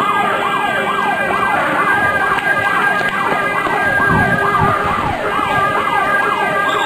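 An alarm siren sounding in rapid, repeating falling sweeps, about three a second, over a steady higher tone: the emergency call-out signal (alarm stelling) for police recruits to turn out and assemble. A few low thumps come a little past the middle.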